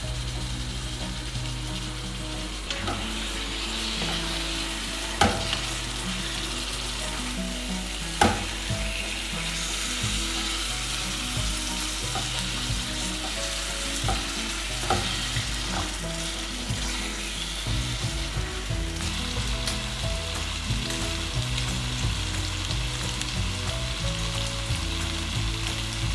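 Marinated beef sizzling steadily as it fries in a pan, stirred now and then, with sharp knocks against the pan, the loudest two about five and eight seconds in.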